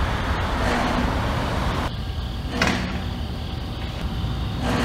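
Compressors on refrigerated containers starting up: a hissing rush of noise, a sharp bang about two and a half seconds in, and another rush of noise near the end, over the steady low rumble of the running refrigeration units.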